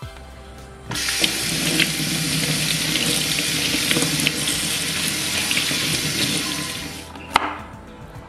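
Kitchen tap running onto sweet potatoes rubbed clean by hand under it, the water splashing into a stainless steel sink; it starts about a second in and fades out near the end. A single sharp knock follows just after.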